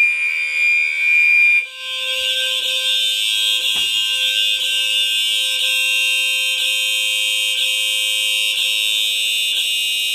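Fire alarm horn sounding continuously. It starts as a clean high tone and about a second and a half in turns into a harsher buzzing tone, with faint clicks about once a second. The alarms are running unsynchronised because the sync module's jumper has been removed.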